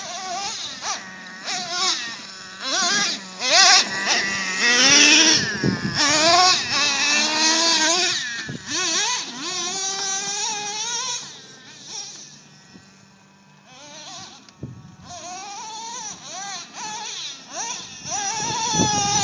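A radio-controlled car's motor whining, its pitch rising and falling again and again as the throttle is worked. It fades for a few seconds about two-thirds of the way through, then picks up again.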